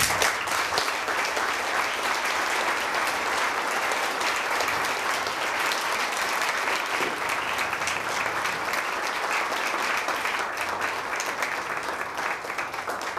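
Audience applauding: a long, steady round of clapping.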